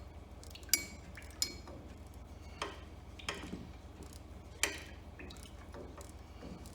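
Metal hand tools clinking against the bolts and housing of a tractor water pump as it is unbolted: about five sharp, separate clinks a second or so apart.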